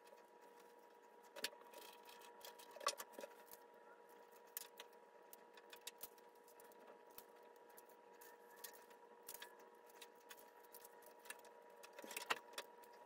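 Near silence, with a faint steady hum and soft, scattered clicks and rustles as a flat iron clamps and slides down long straight wig hair.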